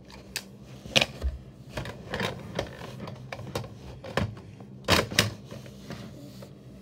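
Hard plastic clicks and clacks from a DX Progrise Key toy being handled, about nine separate clicks, the loudest about a second in and twice around five seconds in.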